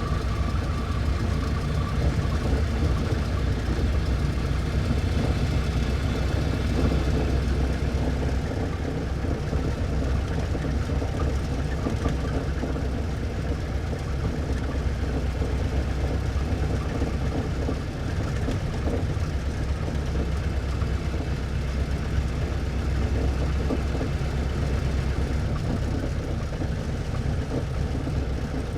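1924 Ford Model T's four-cylinder side-valve engine running steadily.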